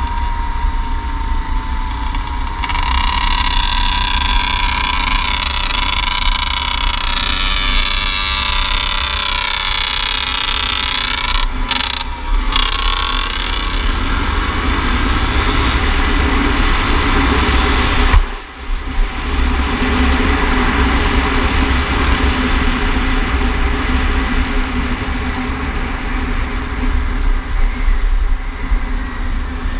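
Yamaha dirt bike engine running steadily under way, heard from the rider's helmet camera with wind noise on the microphone. The engine note drifts slightly and drops off sharply for a moment about two-thirds of the way through before pulling again.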